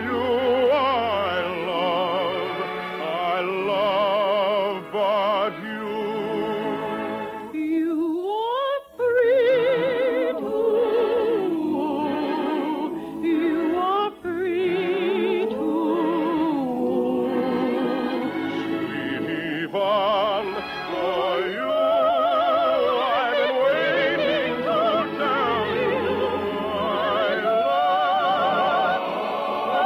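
Operatic singing with orchestral accompaniment, the melody lines held with wide vibrato, and a quick upward sweep about eight seconds in. The sound is narrow, with little above the upper mid-range, as on an old radio transcription.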